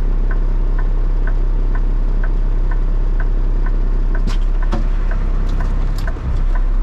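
Vehicle engine running steadily, heard from inside the cab, with a turn-signal indicator ticking about twice a second. The ticking stops about four seconds in, and a few sharp knocks follow.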